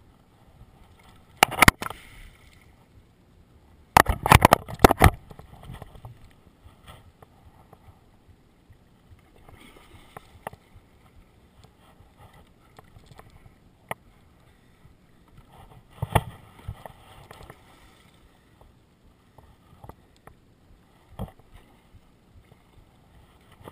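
Water lapping at a small boat, broken by several sudden sharp splashes and knocks. The loudest cluster comes about four to five seconds in, with others near the start and around sixteen and twenty-one seconds.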